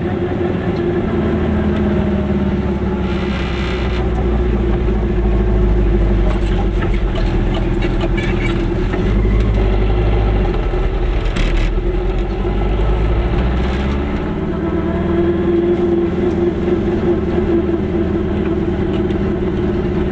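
Goggomobil microcar's small two-stroke twin engine running as the car drives along, its pitch sinking and rising with engine speed, with a heavy low drone through the middle of the stretch.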